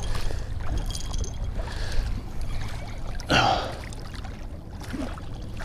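Shallow seawater splashing and sloshing among shoreline rocks as a hooked leopard shark is pulled in through it, over a steady low rumble, with one louder burst about three seconds in.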